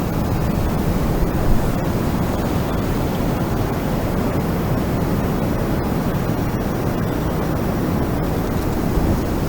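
Strong wind blowing steadily, a dense rushing noise heaviest in the low end, with a brief gust about a second and a half in.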